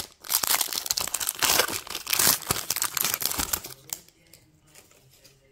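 Plastic wrapper of a baseball card pack crinkling as it is torn open by hand. The crinkling stops about four seconds in.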